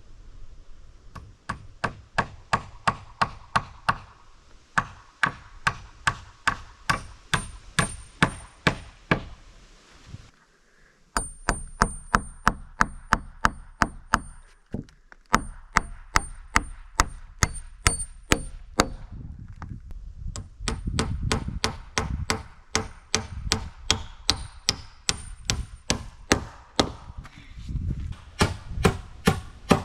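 A hammer driving nails into wooden siding boards: a long run of sharp, even blows about two or three a second, some with a short metallic ring, stopping briefly twice as one nail is finished and the next is started.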